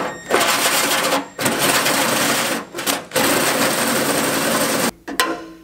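Milwaukee cordless drill driving a hole saw as it cuts a round hole through a car's fender panel. It runs loud and steady with a few brief pauses and stops shortly before the end.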